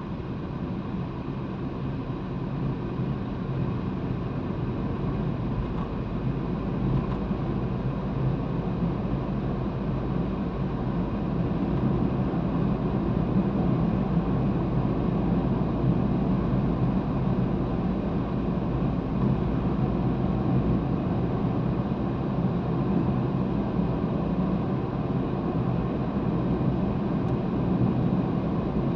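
Steady low rumble of a car's tyres and engine heard inside the moving car's cabin, growing a little louder over the first dozen seconds and then holding even.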